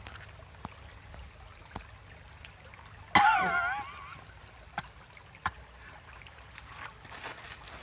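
Shallow creek water trickling steadily. About three seconds in comes a short, loud, wavering vocal sound, and a couple of sharp clicks follow a second or two later.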